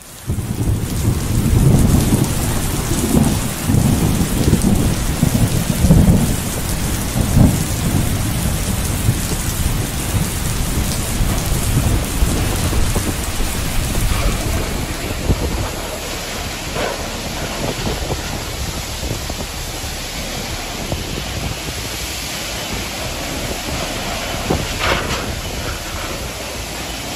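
Torrential thunderstorm rain pouring down with strong wind: a dense, steady rush of rain, with deep uneven rumbling through roughly the first eight seconds before it settles into a steadier roar of downpour.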